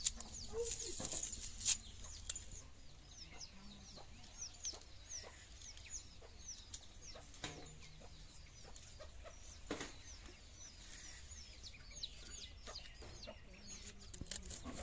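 Birds chirping constantly: short, high chirps that slide downward, several a second, with a few sharp clicks standing out.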